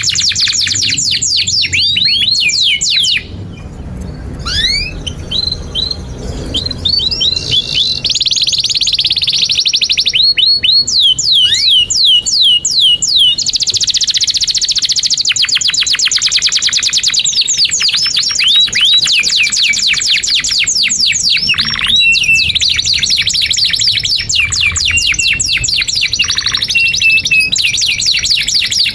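Domestic canary singing a long, continuous song of fast trills and rapid runs of repeated down-sweeping notes, with a brief sparser, quieter stretch a few seconds in.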